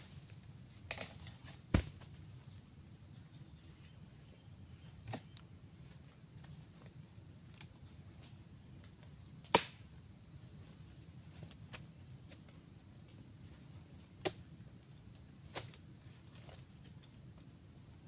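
A steady insect chorus, with about six scattered sharp knocks and thuds from harvesting oil palm fruit bunches with a long-handled harvesting tool. The two loudest come about two seconds in and about halfway.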